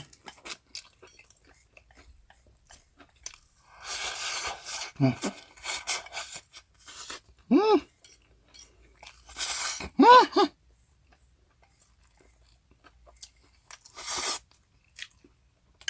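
A person chewing spicy bibim noodles and a Korean pancake close to the microphone, with several short bursts of wet eating noise. Three brief appreciative "mm" hums come in between.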